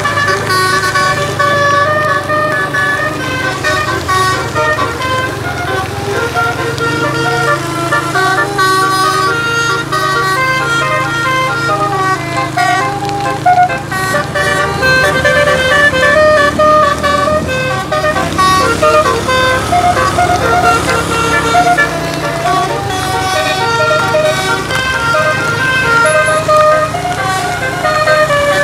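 Indonesian bus 'telolet' (basuri) multi-tone horn playing a long tune of short notes that jump up and down in pitch, with the bus engine running steadily underneath.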